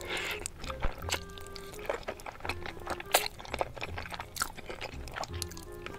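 Close-miked mouth sounds of eating spaghetti in tomato sauce: wet slurping of noodles and chewing, full of small clicks and smacks, over quiet background music.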